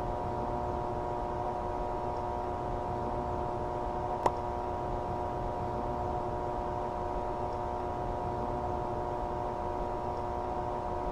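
A steady electronic drone: several held tones over a constant hiss, unchanging throughout, with a single sharp click about four seconds in.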